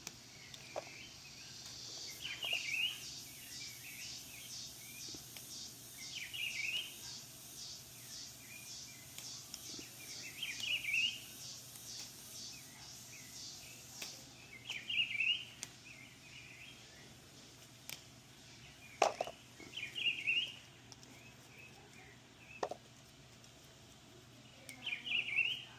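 A songbird singing the same short phrase over and over, about every four to five seconds. A fast, high, even pulsing, about two beats a second, runs under it through the first half and then stops.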